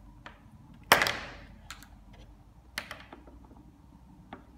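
One sharp clack about a second in, followed by a few lighter clicks and taps, from handling a coating thickness gauge, its cabled probe and plastic calibration foils on a tabletop.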